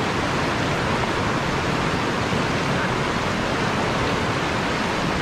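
Steady rush of river water pouring over a low weir and through boulders.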